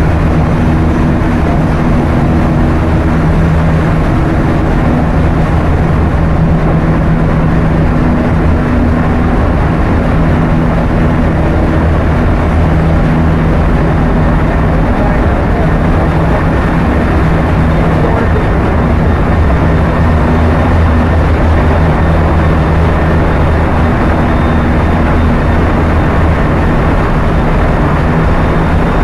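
Container ship engine-room machinery running: a loud, steady mechanical din with a low hum that strengthens and fades at times.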